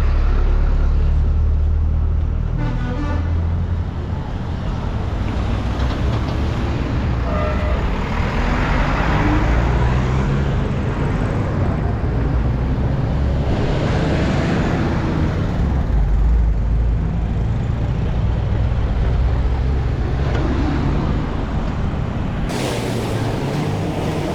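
Road traffic: motor vehicle engines running with a steady low rumble and road noise.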